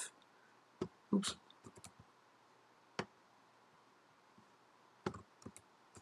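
Sparse, irregular clicking at a computer, a few single clicks scattered over several seconds. The loudest comes about a second in.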